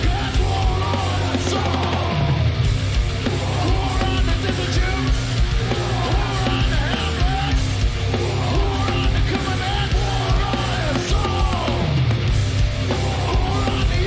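A heavy metal band playing live: distorted electric guitars and drums under shouted, yelled vocals, a live concert recording.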